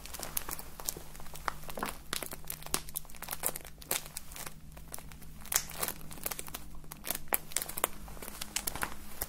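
Close-miked crinkling and crackling of something handled in the hands, with many small irregular crinkles and ticks.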